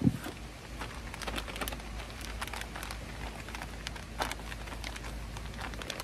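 Plastic food packaging crinkling and rustling, with scattered light clicks and knocks, as items are handled inside a portable electric cooler, over a low steady rumble.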